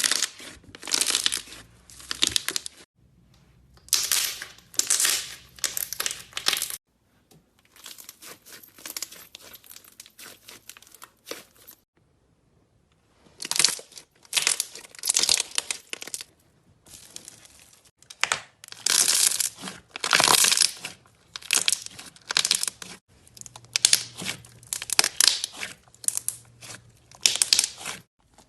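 Crackling, crinkling and tearing noises from hands pressing and pulling apart a crunchy ASMR craft material, in repeated bouts of a second or two. A softer, finer crackle runs in the middle, with a short pause about halfway.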